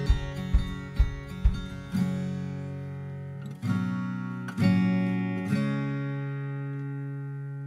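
Background music: acoustic guitar strumming chords, with a beat of low thumps in the first second and a half, then chords struck singly and left to ring out.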